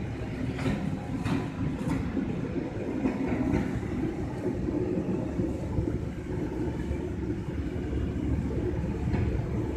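Steady low rumble of outdoor street background noise, with a few faint rustles of a foil spice packet being shaken over the tray in the first few seconds.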